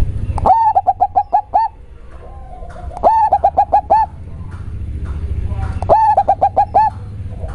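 Zebra dove (perkutut) singing its cooing song in three phrases, about three seconds apart. Each phrase opens with a rising note and runs on into a quick series of five or six short coos.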